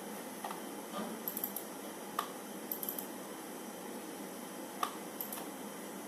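Scattered light clicks and taps, about a dozen at irregular intervals, over a steady hiss.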